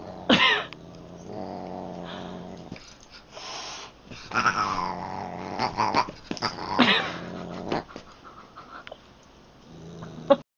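A cat growling and yowling: several separate drawn-out cries, with a low steady growl between them.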